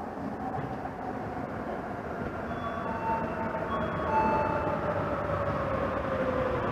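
Rubber-tyred Sapporo subway train approaching the station in its tunnel: a rumble that grows steadily louder, with a whine that slowly falls in pitch as the train slows.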